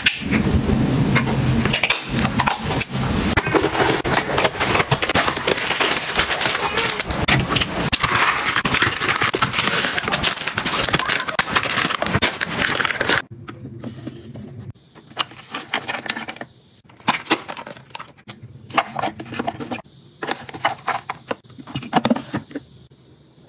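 Close-up handling of plastic-wrapped toiletries and packaging: a dense run of crinkling and rustling with many small clicks. About halfway through it gives way to quieter, scattered taps and clicks as fingers flick through small foil sachets in a plastic drawer.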